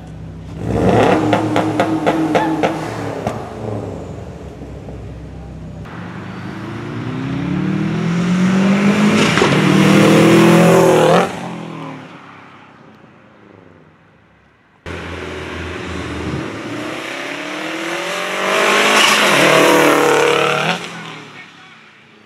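2013 Subaru WRX's turbocharged flat-four, through an SPT exhaust and Invidia catless downpipe, revved at the tailpipes, then accelerating hard past twice. Each pass climbs to a loud peak and then fades away, the first cutting off sharply at its peak.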